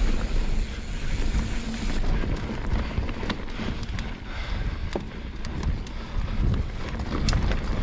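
Mountain bike riding over a dirt trail: wind buffeting the microphone, with scattered clicks and rattles from the bike over rough ground.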